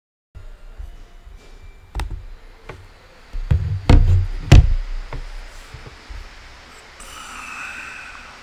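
Dull knocks and thumps from a camera being handled and adjusted, picked up close on its microphone: a few at first, then a louder cluster about four seconds in. A faint hiss comes in near the end.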